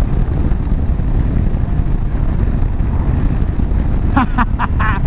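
Motorcycle riding at speed: steady low wind roar on the microphone mixed with the running of the KTM 790 Adventure's 799 cc LC8c parallel-twin engine.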